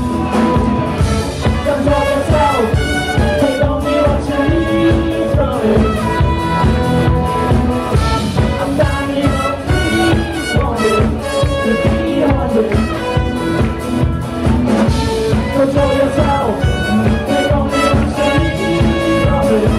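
Live band playing: electric guitars and drum kit with two brass horns, trumpets among them, playing a held horn line over a steady beat.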